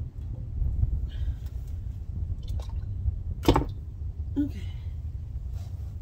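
Motor oil dripping and trickling into a plastic drain pan, over a steady low rumble, with one sharp knock about three and a half seconds in.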